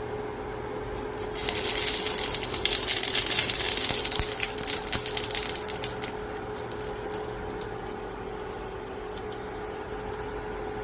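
Small fish frying in hot oil: a burst of loud crackling and spattering starts suddenly about a second and a half in, then dies down over a few seconds to a steady background hum.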